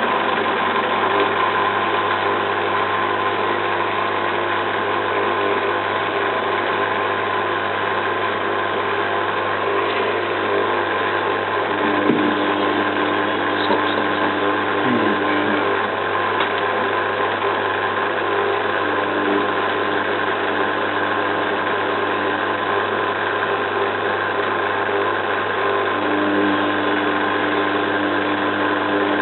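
Zanussi FLA1002W front-loading washing machine spinning steadily in a rinse-stage spin burst, its motor and drum giving a steady whine over a low hum.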